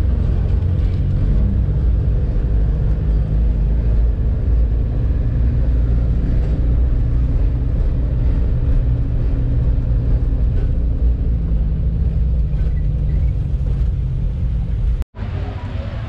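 Steady engine and road rumble of a moving pickup-truck taxi (songthaew), heard from its open rear passenger bed. It cuts off suddenly about a second before the end.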